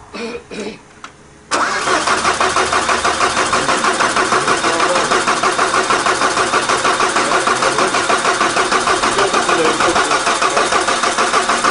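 Cold start of a mini tractor puller's diesel engine: it catches suddenly about a second and a half in and then runs loud and steady with a fast, even pulsing beat.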